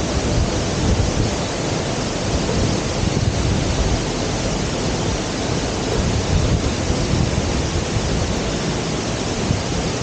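Steady rushing roar of a jungle waterfall pouring into its rocky plunge pool, with a low rumble underneath.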